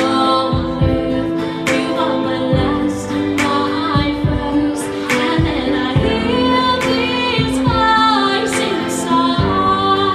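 A woman singing live into a microphone over instrumental accompaniment with sustained chords and a drum beat. She holds long notes that waver in pitch.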